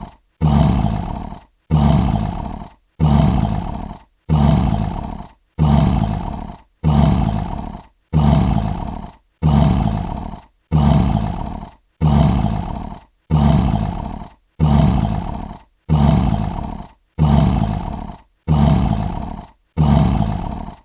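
Lion roar sound effect: the same short roar repeated about every 1.3 seconds, each one starting abruptly, deep and strongest in the low range, and fading out before a brief silence.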